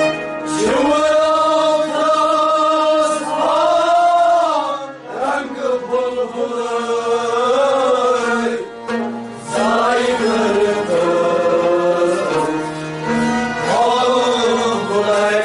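A man's voice singing a Kashmiri Sufi devotional kalam in long, held, wavering notes, phrase after phrase, over a steady instrumental drone.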